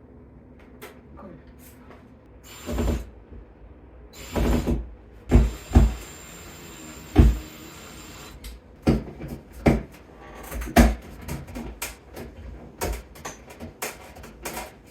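Power drill running in two short bursts and then a run of about three seconds, with heavy knocks among them, followed by a quick string of sharp clicks and knocks.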